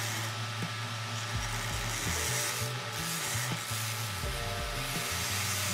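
Belt grinder with a half-inch small-wheel attachment grinding the steel of a knife blank at the bolster, a steady abrasive hiss that briefly drops out twice near the middle as the blade lifts off the belt. Background music with a bass line plays underneath.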